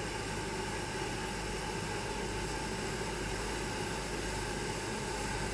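Abt No. 5 rack steam locomotive approaching in the distance: a steady rushing hiss of steam with a faint steady hum underneath.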